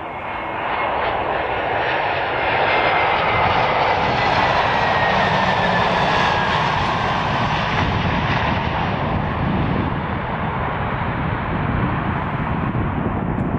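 Airbus A320's turbofan engines on landing rollout: a broad jet rumble that grows louder about two seconds in and eases toward the end, with a thin engine whine that falls in pitch as the airliner passes.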